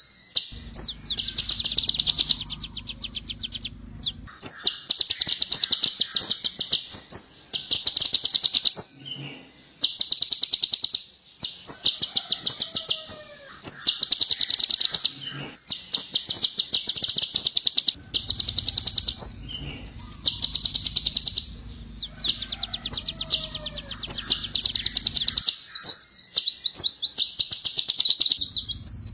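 A kolibri ninja (Van Hasselt's sunbird) singing loudly: very high, rapid chattering trills delivered in repeated bursts of one to two seconds with short breaks between them.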